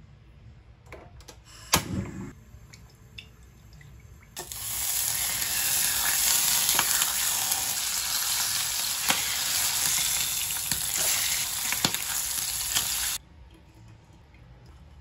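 A few light knocks of the pan and utensil, the loudest a sharp knock about two seconds in. Then, about four seconds in, a slice of bacon in a frying pan sizzles loudly for about nine seconds and cuts off suddenly.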